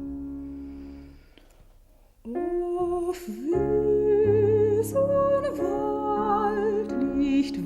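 A sustained keyboard chord fades away. About two seconds in, a soprano voice comes in, singing a slow melody with wide vibrato over held keyboard chords.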